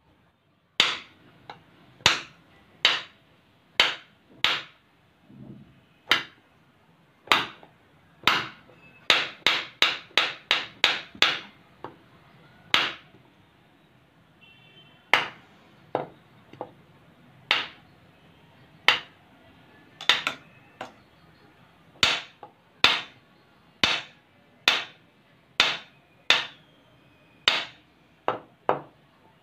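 Kitchen knife chopping and shaving a bar of Dove soap into flakes: a long series of sharp, irregular knocks as the blade strikes through the soap onto the table, about one or two a second with a quicker run of strokes about a third of the way in.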